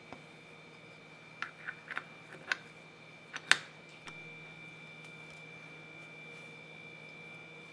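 Small steel gears clicking against each other and the metal gear housing as they are fitted onto their shafts in an electric drill's gearbox: a run of light metallic clicks, the sharpest about three and a half seconds in.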